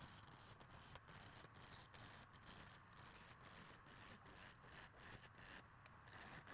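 Near silence: a faint, steady hiss with frequent brief dropouts.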